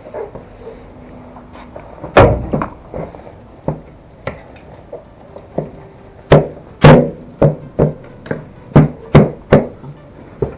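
Sharp knocks and clicks of hard plastic parts of a car's air filter housing being knocked and pressed back into place. One loud knock comes about 2 s in, then a run of about eight knocks near the end.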